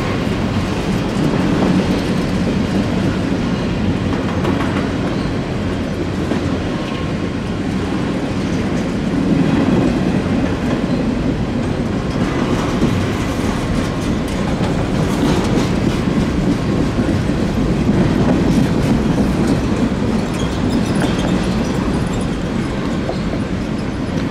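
Long freight train of garbage-container cars rolling steadily past at close range, a continuous rumble of wheels on rail. It sounds empty, which the filmer takes to mean the container cars are running back empty.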